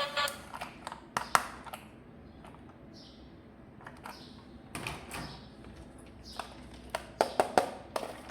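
Hard plastic toy parts and packaging being handled, giving scattered sharp clicks and taps, with a quick run of clicks near the end.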